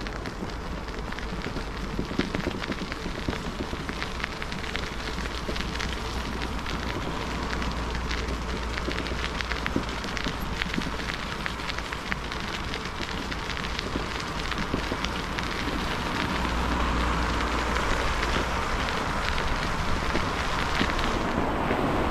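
Bicycle tyres rolling over a gritted asphalt path: a steady rushing noise full of small crackles from the grit, with wind rumbling on the microphone. It grows a little louder in the second half.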